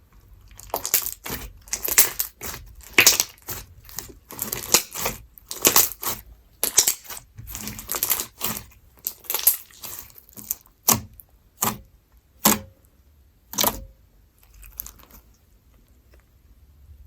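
Slime with bits of lemon peel being squished and stretched by hand, giving a run of crackly, sticky bursts about one or two a second. These thin to a few sharp pops and stop about two seconds before the end.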